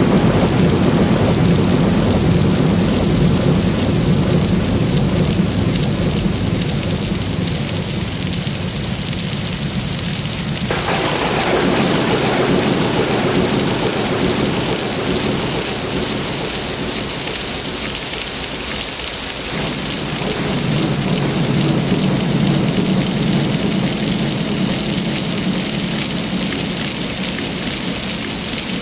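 Coffee machine brewing: a steady hissing, sputtering gurgle of hot water, its tone shifting about 11 seconds in and again about 19 seconds in.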